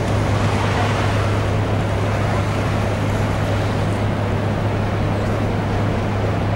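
Steady low hum of a docked cruise ship's machinery, with an even rushing noise over it.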